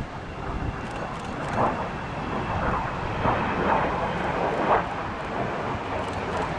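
Avro Vulcan delta-wing jet bomber's four Rolls-Royce Bristol Olympus turbojets, a steady jet rumble that swells every second or so, with wind on the microphone.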